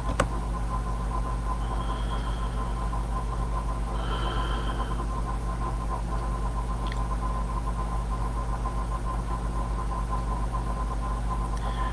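Steady low background hum, with a faint high tone coming in briefly twice a couple of seconds apart.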